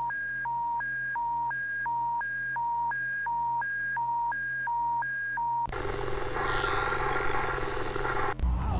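Electronic emergency-alert tone, two steady pitches alternating high-low about three times a second over a low hum. About two-thirds of the way in it cuts to loud hiss of broadcast static with faint sweeping whistles. Near the end a low rumble begins.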